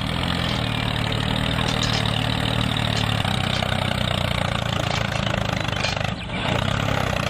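Tractor engine running steadily, with a short dip about six seconds in.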